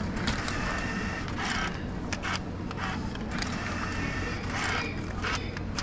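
Teraoka meal-ticket vending machine taking a cash payment: its note and coin mechanisms make a series of short mechanical clicks and rattles over a steady low hum.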